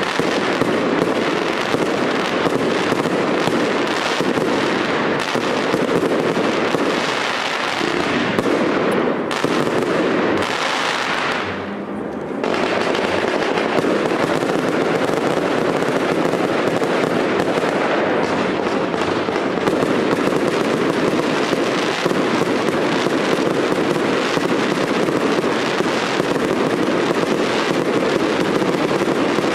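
Fireworks display: a dense, continuous barrage of bangs and crackling from aerial shells going off, with a brief lull about eleven seconds in.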